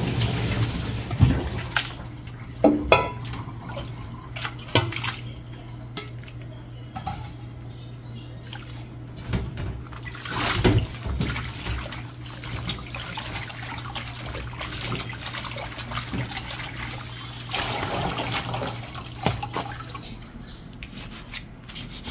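Tap water running and splashing in a stainless steel sink as blanched seaweed is rinsed by hand in a plastic colander set in a metal bowl, with the water swelling louder a few times and scattered small clicks and knocks.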